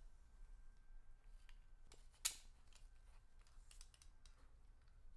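Near silence with faint scattered clicks of small hardware being handled while light guards are fitted to the lamp, and one sharper click a little over two seconds in.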